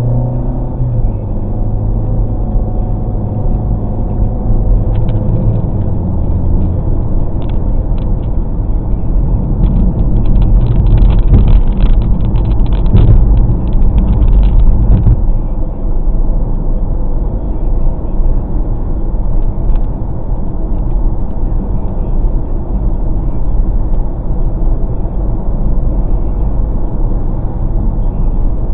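Steady engine and tyre rumble of a moving car, heard inside the cabin, with a low hum in the first few seconds as it pulls away. About ten seconds in it grows louder with a rattling, clicking texture for some five seconds, then settles back to an even road drone.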